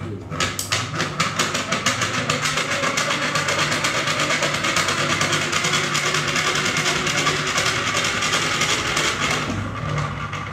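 A small electromagnetic induction demonstration machine running, its magnet spinning past a coil to generate current. It makes a steady whirring rattle made of rapid, evenly spaced clicks over a low hum. The sound starts at once and stops shortly before the end.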